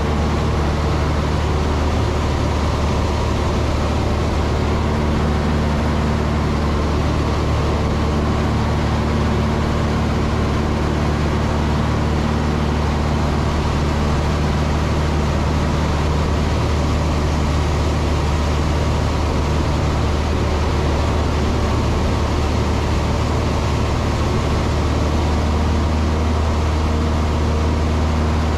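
Cessna 162 Skycatcher's four-cylinder Continental O-200 engine and propeller running steadily in flight, heard inside the small cockpit as a constant drone.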